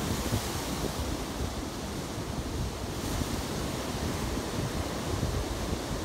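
Ocean surf breaking over rocks and washing up against a seawall, a steady rushing wash with a deep rumble, with wind buffeting the microphone.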